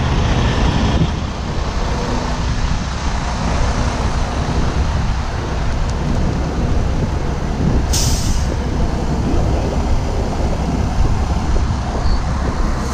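Heavy diesel trucks idling, a steady low rumble. About eight seconds in comes a short, sharp hiss of air-brake air.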